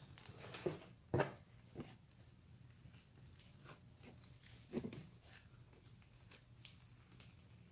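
Foam slime (glue slime with foam beads) being stretched by hand, giving a few short, sudden sounds, the loudest about a second in and another near five seconds.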